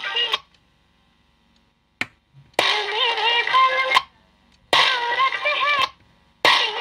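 A song with a singing voice playing from a radio-cassette player tuned to an FM station, cutting out abruptly three times, the first time for more than a second, and coming back each time.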